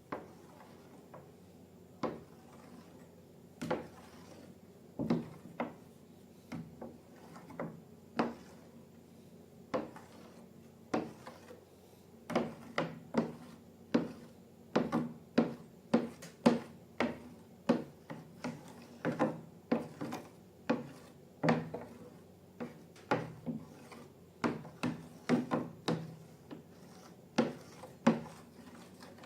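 A series of irregular sharp taps and clicks, at first about one every second or two and more frequent from about twelve seconds in.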